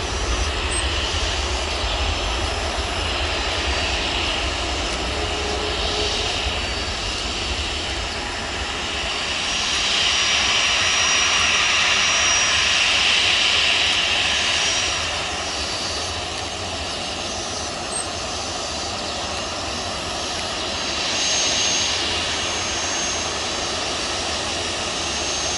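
Airliner engines running at the airport, a steady rushing noise with a thin high whine. It swells louder about ten seconds in, eases off a few seconds later, and swells briefly again near the end.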